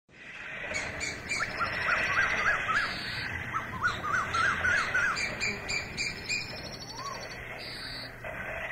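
Birds calling: two runs of quick, repeated up-and-down chirps over a busy chatter of higher, faster bird notes.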